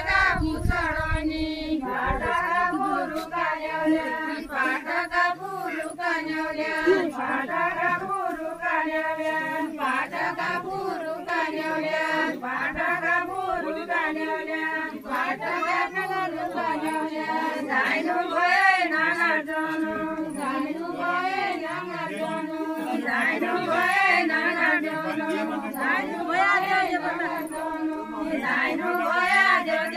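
A group of women singing a Deuda folk song together, unaccompanied, in a steady chant-like melody that runs on without pause.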